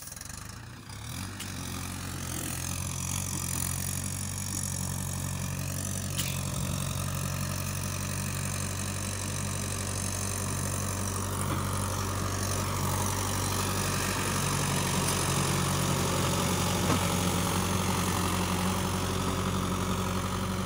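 Farm tractor's diesel engine running steadily at idle, a low even drone that swells up over the first second or two and then holds.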